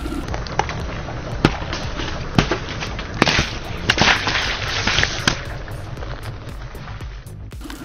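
Car tyre rolling over a row of lemon halves on gravelly asphalt, crushing them: a run of sharp cracks and pops as the lemons burst and juice squirts out, thickest from about three to five seconds in, over a steady low rumble.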